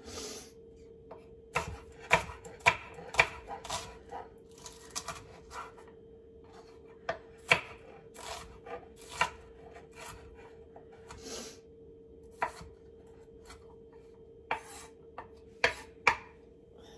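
Chef's knife rough-chopping a shallot on a wooden cutting board: irregular sharp knocks of the blade on the board, with a few scrapes of the knife across it, over a faint steady hum.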